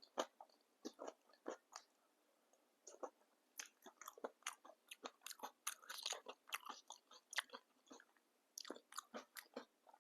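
Close-miked chewing and crunching of papdi chaat: the crisp fried papdi wafers crackle between the teeth in quick clusters of crunches, with short lulls about two seconds in and again near the end.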